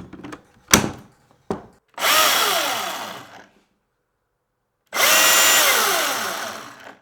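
Milwaukee M18 battery chainsaw triggered in two short runs, the electric motor and chain whirring up and then winding down with a falling pitch each time. A few handling clicks and one sharp click come before the first run.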